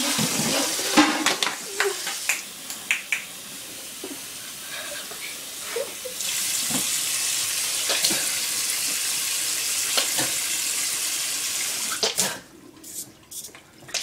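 Kitchen sink tap running, with water splashing as someone bends under it to drink or rinse the mouth. The flow gets louder about halfway through and shuts off near the end.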